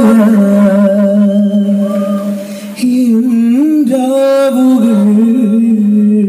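A man singing solo into a microphone, amplified through stage speakers, with no instruments. He holds long, slightly wavering notes, with a short break for breath about two and a half seconds in.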